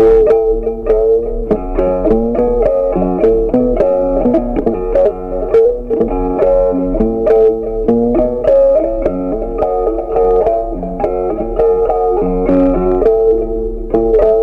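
Instrumental background music: a steady stream of plucked-string notes over a bass line.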